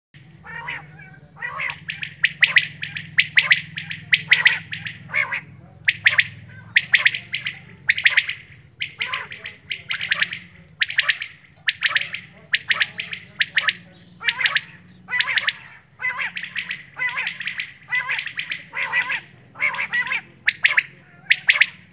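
Quail calling over and over: short, harsh, raspy call clusters repeating about once a second, over a steady low hum. It is a quail call recording of the kind used to lure quails for hunting.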